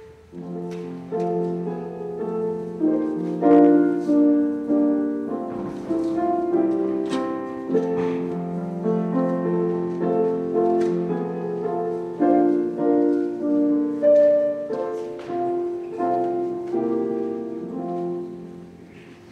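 Piano playing an instrumental piece, with chords and melody notes struck and left to ring. It starts as speech stops and fades out near the end.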